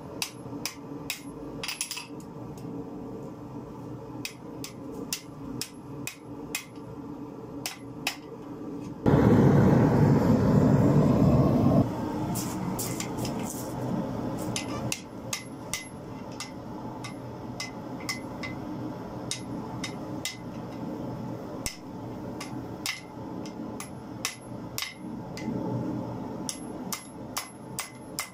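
Hand hammer striking red-hot car-spring steel on an anvil during forging, a steady series of blows about one to two a second. A few seconds in the middle the blows stop for a loud, steady rushing noise.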